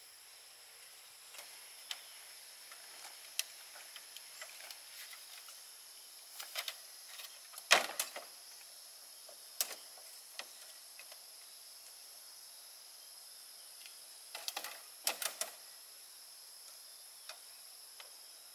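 Scattered sharp knocks and clacks of bamboo poles and strips being handled, the loudest about eight seconds in and a quick cluster around fifteen seconds. Under them runs a steady high buzz of insects.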